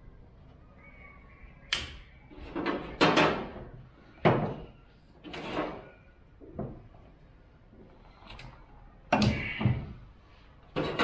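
A string of sharp knocks and clanks at irregular spacing, some with a short ring after them, like hard objects being handled and set down in a workshop.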